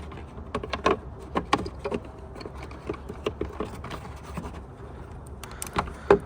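Scattered clicks and taps of small plastic parts being handled, over a steady low hum; the sharpest click comes near the end.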